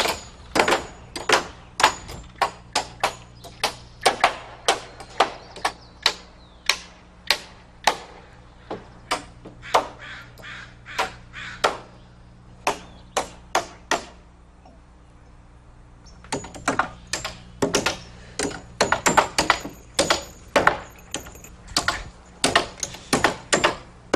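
Hammers driving nails into wooden roof rafters: a run of sharp, irregular blows, often several in quick succession, pausing for about two seconds a little past the middle and coming faster near the end.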